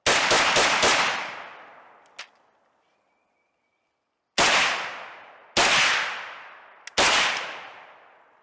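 Custom AK-47 rifle firing a quick burst of about five shots within the first second, a bump-fire attempt. Three single shots follow, spaced a little over a second apart, each trailing off in a long echo.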